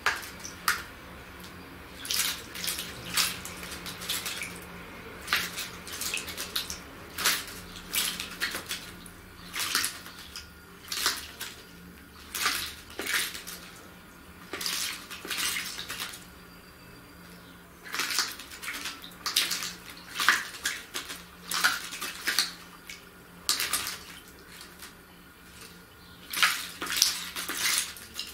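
Common blackbird bathing in shallow water, splashing in quick bouts of wing-fluttering separated by short pauses.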